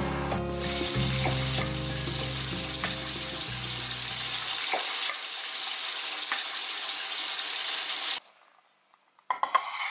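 Chicken wings deep-frying in a saucepan of oil: a steady sizzle that cuts off suddenly near the end. Background music with a low bass line plays under it and stops about halfway through.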